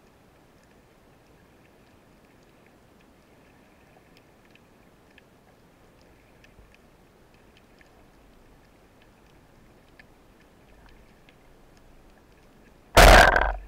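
Faint underwater background with scattered faint ticks, then near the end a single loud, sharp crack from a speargun shot that dies away within about half a second.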